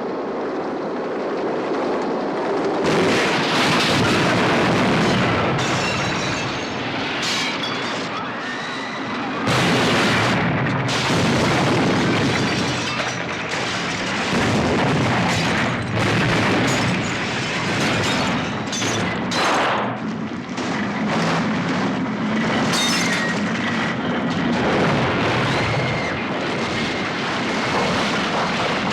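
Destruction sound effect: a continuous rumbling din of crashing and breaking debris, with many impacts one after another.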